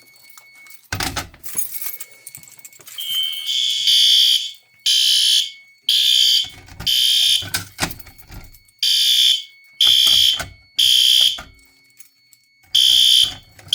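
A sharp clunk about a second in, then System Sensor fire alarm horn strobes (SpectrAlert Advance and L-series) sounding in sync. They give loud, even half-second horn blasts in groups of three with a longer pause between groups: the temporal-3 evacuation pattern.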